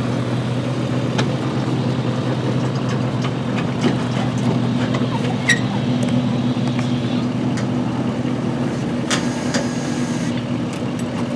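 Vehicle engine idling steadily, a low even hum, with a few light clicks over it.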